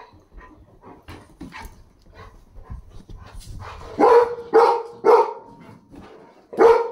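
A dog barking four times in the second half, in short bursts about half a second apart. Before the barks there are only faint clicks and scuffles.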